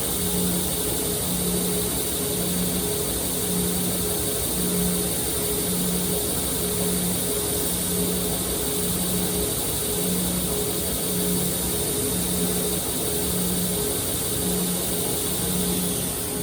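Power grinder running steadily with a hiss, as a knife is ground during thinning, with an even low pulse about once a second.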